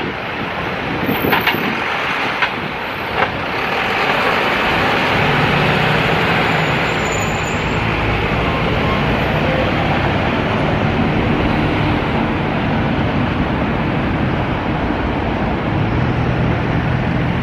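Busy road traffic heard from a moving bicycle: a steady rush of vehicle and wind noise, with the low hum of nearby engines coming in about five seconds in and again near the end. A few light clicks sound in the first few seconds.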